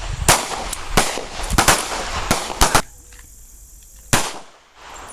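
Pistol shots from several shooters firing one at a time: about eight sharp cracks at irregular spacing, most in the first three seconds and a last one about four seconds in.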